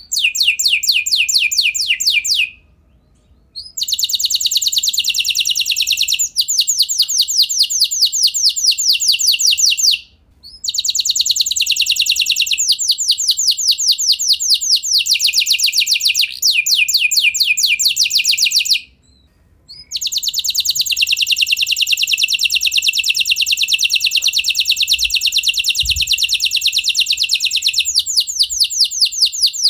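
A yellow F1 domestic canary singing: long, fast trills of rapidly repeated high notes, broken by three short pauses.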